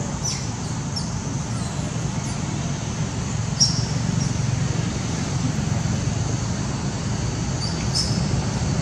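Steady outdoor background noise: a low rumble under a thin high hiss, with a few short high chirps, the sharpest about three and a half seconds in and again near the end.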